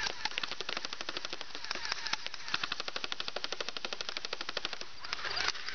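Airsoft machine gun firing on full auto: a fast, even string of sharp clicks, many shots a second, with hardly a break.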